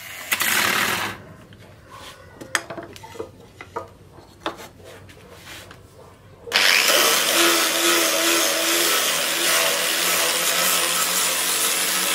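Electric angle grinder with a sanding disc sanding a wooden axe handle. It runs for about a second, pauses for several seconds with a few light knocks, then starts again about six and a half seconds in and runs steadily.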